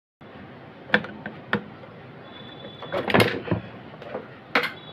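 Sharp clicks and light knocks of hands and tools handling an inverter circuit board as a MOSFET is taken off it and set down on the table. A few single knocks come first, then a louder cluster about three seconds in and one more knock near the end.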